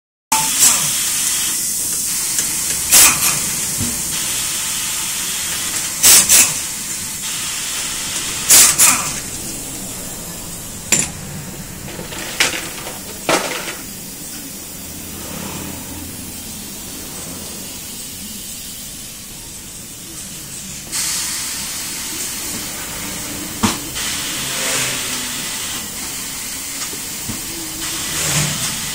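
Tyre-change work with compressed air: a steady hiss broken by several short, sharp blasts.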